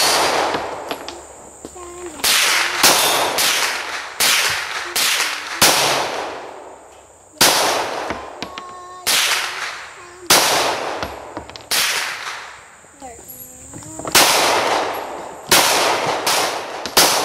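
Gunshots at a firing range: about twenty sharp shots in uneven strings, some as close as half a second apart and others with pauses of a second or two. Each shot has a short trailing echo.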